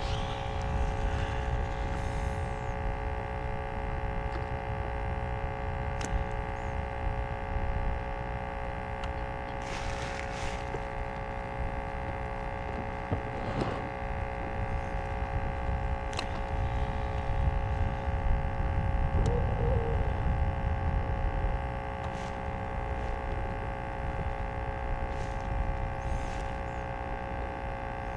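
Steady electric motor whine, several even tones held without change, over a low rumble of wind and water, with a few faint light knocks along the way: a kayak being driven along.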